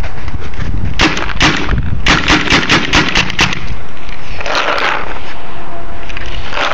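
Paintball gun firing: two single shots, then a quick string of shots in rapid succession.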